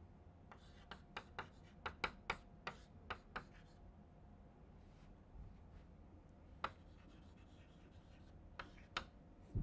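Chalk writing on a blackboard: a quick run of sharp chalk taps and short scratches for the first few seconds, then a few scattered taps later on. Faint.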